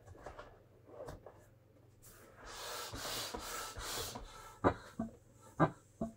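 Hands rubbing and pressing on the vinyl skin of a large inflatable pony toy: a rustling rub for about two seconds in the middle, then four short, sharp knocks near the end.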